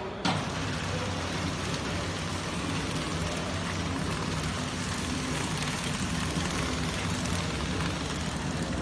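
Automatic packing machine running steadily: a constant mechanical hum with an even hiss, cutting in sharply just after the start.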